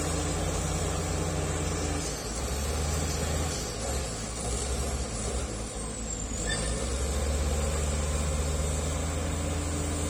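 Bulldozer's diesel engine running. Its note wavers and weakens between about two and six seconds in, then steadies and grows a little louder.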